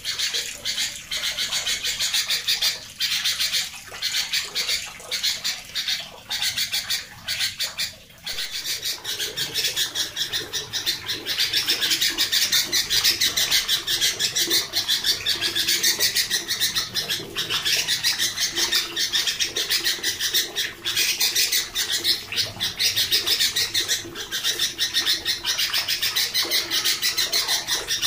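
Caged sooty-headed bulbul calling: a long run of harsh, dense chattering notes, several a second, that grows thicker and more continuous about eight seconds in.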